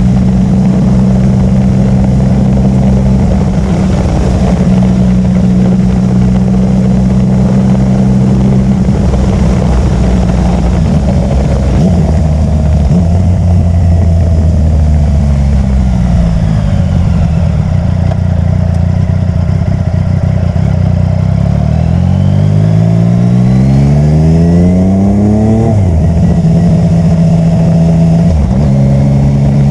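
Yamaha MT-09 Tracer's three-cylinder engine with an Akrapovic titanium exhaust, running under way at a mostly steady note that shifts a few times. Near the end the note climbs steadily for about four seconds as the bike accelerates, then drops suddenly at a gear change or throttle close.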